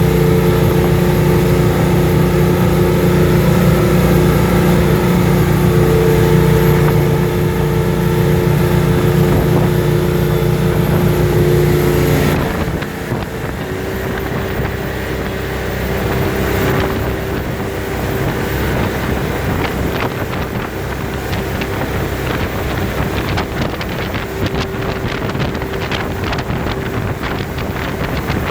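Volvo Penta KAD44 turbo diesel running in a jet-drive RIB under way, a steady deep engine note with fixed whining tones above it. About twelve seconds in the sound changes abruptly: the deep note drops away, leaving a thinner engine tone under rushing wind and water noise.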